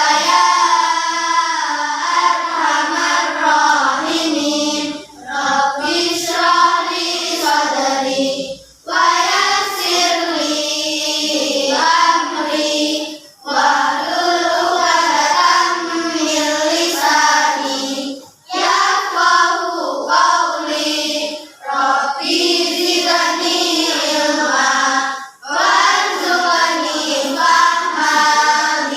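A group of children singing a song together, in phrases broken by short pauses for breath every few seconds.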